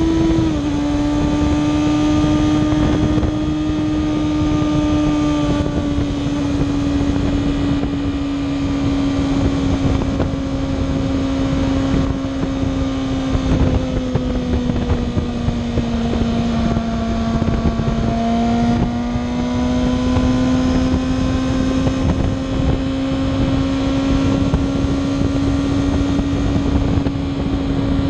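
Kawasaki ZX-6R inline-four engine at steady highway cruise, its note easing down slowly through the middle and climbing again in the last third as the throttle is opened, with wind rushing over the microphone.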